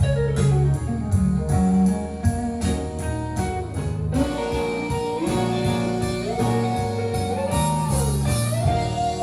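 Guitar-led recorded music with sliding notes over a steady bass line, played back through a Marantz 1040 integrated amplifier and loudspeakers.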